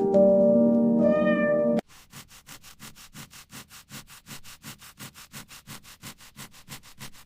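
A cat meows once over background music. The music cuts off suddenly, and a quiet rhythmic rubbing or scraping follows, about five strokes a second.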